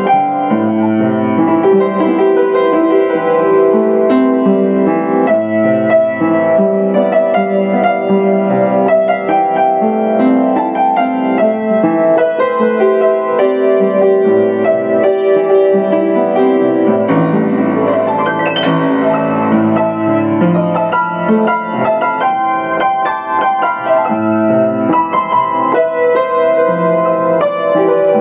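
Yamaha U1J upright piano played solo with both hands: a continuous flowing passage of many notes, with chords in the lower-middle range under a melody.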